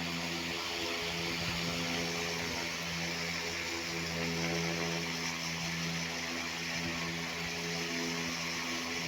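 A motor running steadily at an even pitch, with a constant hum and hiss.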